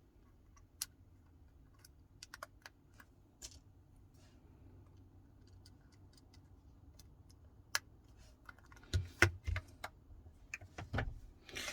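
Scattered small clicks and taps of a phone's parts and a repair tool as the main board is seated and its flex connectors pressed home, with a cluster of louder knocks near the end.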